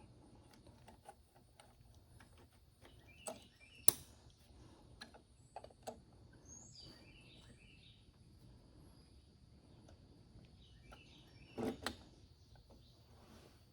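Light clicks and taps of small metal carburetor parts being handled and fitted, the sharpest about four seconds in and a short cluster near the end. Birds chirp repeatedly in the background.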